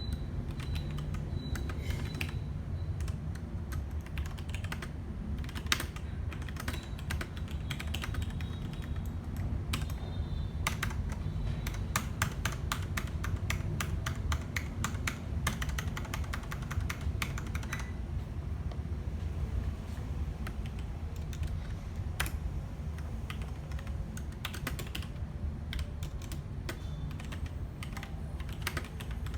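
Logitech G Pro keyboard being typed on: a fast, irregular run of key clicks and clacks, over a steady low hum.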